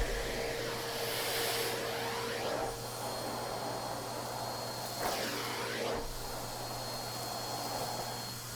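Numatic James commercial canister vacuum running with a steady hum and a thin high whine, described as quiet, while its floor tool is pushed over thick carpet picking up animal hair; the airflow sound swells and shifts twice with the strokes.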